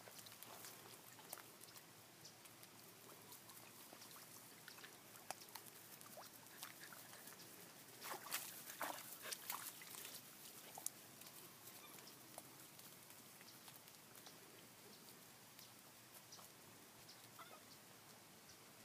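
Mostly near silence, with collie puppies splashing and scuffling in shallow creek water: a short run of sharp splashes and scrabbles about halfway through.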